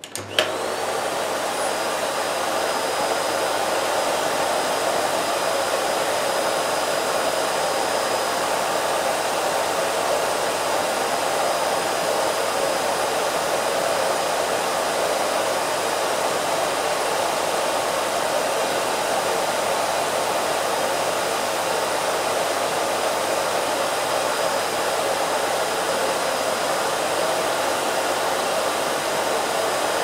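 Miele C3 canister vacuum cleaner switched on with a click, its motor whine climbing to speed within half a second, then running steadily: a loud rush of air with a high motor whine, its floor nozzle resting on a rug to cut the air-rushing noise from the hose end. It measures about 74 dB, against a rated 73 dB. Right at the end it is switched off and the whine starts to fall.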